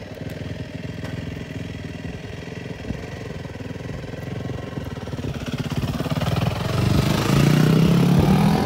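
A motor vehicle engine running steadily at idle, with a vehicle growing louder and passing close over the last few seconds.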